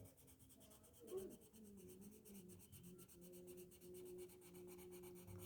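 Faint scratching of a colour pencil on a colouring-book page as a small area is shaded in.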